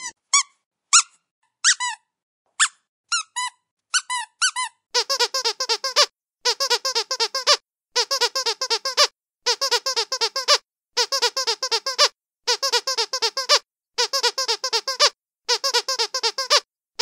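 Squeaky dog toy being squeezed: a few separate squeaks at uneven intervals at first, then, from about five seconds in, repeated bursts of rapid squeaking, each lasting over a second with short pauses between.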